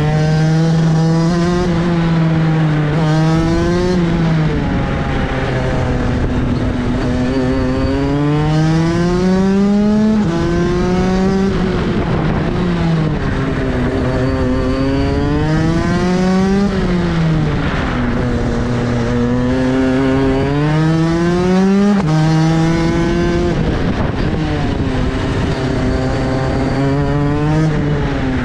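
Kart engine heard onboard at racing speed, its pitch climbing along each straight and dropping sharply as the driver lifts and brakes for the corners, about half a dozen rises and falls in turn.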